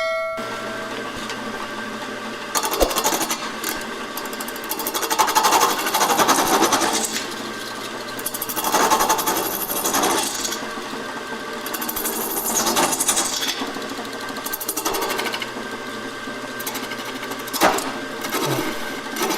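Wood lathe running with a steady motor hum while a turning tool cuts the spinning resin-and-wood bowl. The rough cutting noise swells and fades in passes every few seconds, with a sharp tick near the end.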